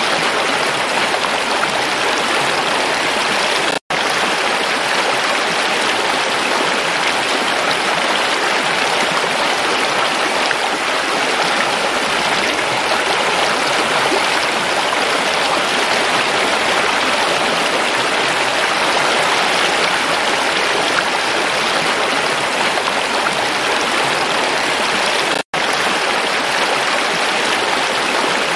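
Shallow rocky stream rushing and splashing over stones: a steady, dense wash of flowing water. The sound cuts out for an instant twice, about four seconds in and a few seconds before the end.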